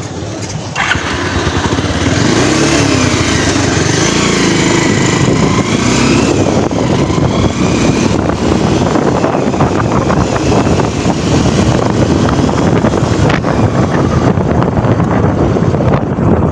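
Motorcycle engine picking up sharply about a second in, its pitch rising and falling as the bike revs and pulls away, then running steadily under load at road speed.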